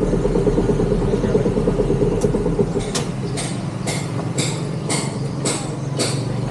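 A motorbike engine idling. From about halfway, sharp regular ticks come in at about two a second over the engine.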